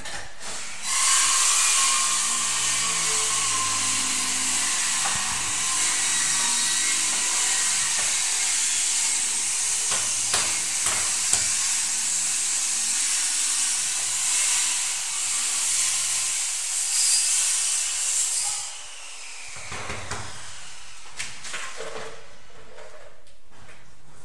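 A power tool running with a loud, steady hiss and a faint whine, starting about a second in and cutting off abruptly after about eighteen seconds.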